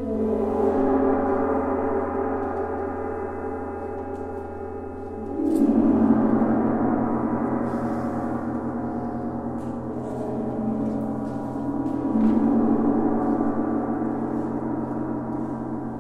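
Several tam-tams ringing together, struck with soft mallets, a dense cluster of sustained overtones. The sound swells again with new strokes about five and a half seconds in and about twelve seconds in.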